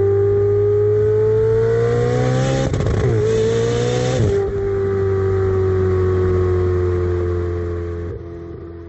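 Ferrari Spider engine running hard at high revs, its pitch slowly climbing, with a short break about three seconds in where the pitch drops and climbs again, as at a gear change. The note then holds steady and fades near the end.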